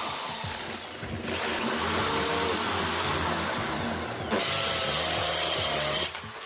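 Craftsman power drill with a masonry bit boring into a concrete block wall: a steady grinding whir, briefly easing twice, then stopping about six seconds in.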